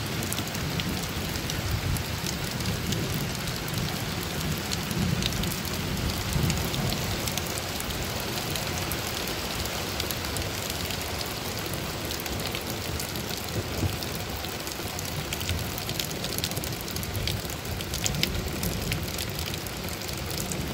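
Steady rain falling, with scattered sharp drop ticks over an even hiss.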